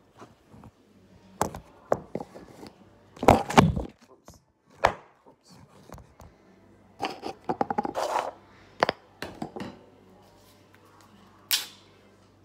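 Handling noise as a phone camera is picked up, moved and set down on a wooden table: scattered knocks and bumps, the loudest about three and a half seconds in, a run of quick taps around seven to eight seconds, and one more knock near the end.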